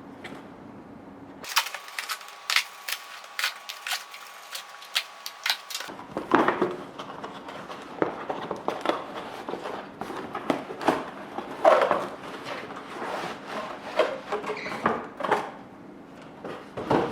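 A small cardboard box being handled and opened, with irregular clicks, taps and rustling of cardboard and packaging.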